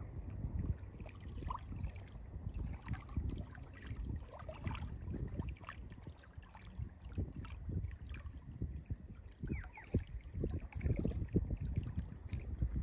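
Wind buffeting the microphone over small waves lapping at the beach, an uneven low rumble that rises and falls, with a few faint high chirps.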